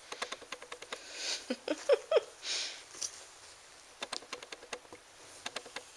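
Four-week-old Ragdoll kitten giving a quick run of four short rising squeaks about two seconds in, over light irregular clicking and rustling from handling on the carpet, with a couple of short breathy puffs.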